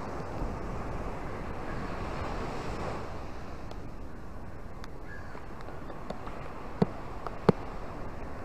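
Surf washing onto a sandy beach and breaking over rocks, a steady rush that swells a couple of seconds in. A few sharp ticks cut through it, two louder ones near the end.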